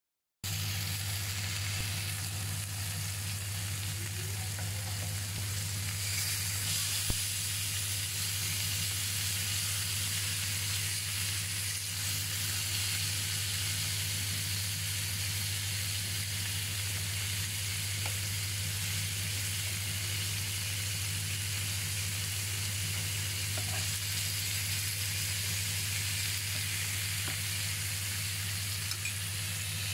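Goat and chicken pieces sizzling steadily as they fry in oil in a double-sided grill pan, with a steady low hum underneath.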